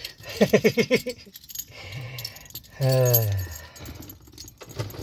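A man laughing briefly, then a single falling vocal sound, with keys jangling.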